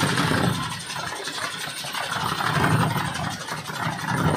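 Kolecer, a large wooden propeller windmill on a tall pole, spinning in the wind with a loud whirring drone that swells and fades with the gusts.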